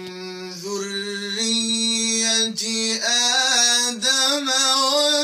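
A man's voice in melodic Quranic recitation, drawn-out notes that climb in pitch in a few steps and are held with a slight waver toward the end.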